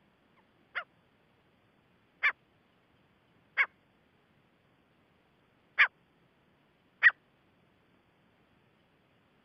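Gray francolin calling: five short, sharp notes spaced one to two seconds apart, each a little louder than the one before.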